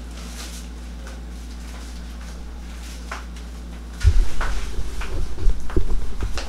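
Steady low room hum with a few faint clicks, then about four seconds in a burst of loud, irregular low thumps and rumbling from the camera being picked up and handled.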